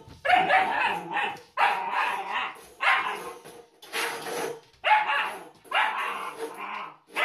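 German shepherd puppy barking over and over, roughly once a second.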